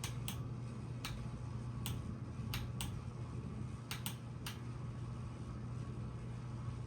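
Casablanca Ventura ceiling fan running on high with a steady motor hum, broken by about eight sharp, irregular clicks in the first four and a half seconds. The fan wobbles on a rough flywheel, and the owner wonders whether the clicks are something rubbing inside.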